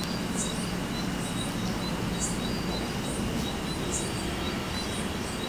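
Night insects chirping: a high chirp recurring about every one and a half to two seconds over a fainter, evenly pulsing trill, with a low steady hum underneath.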